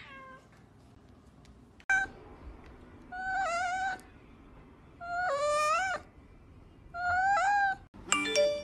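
A cat meows three times, each call about a second long and wavering in pitch, after a short falling cry at the very start. Ringing chime-like tones start near the end.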